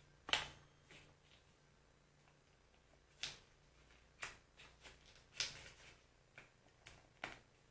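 Small clicks and rustles from handling a twist-open travel perfume atomizer, with about eight short, sharp ticks at irregular intervals, the loudest just after the start.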